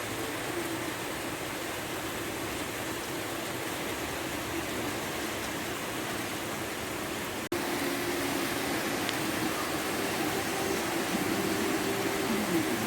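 Heavy rain falling, a steady hiss. About halfway through it cuts out for an instant and resumes a little louder.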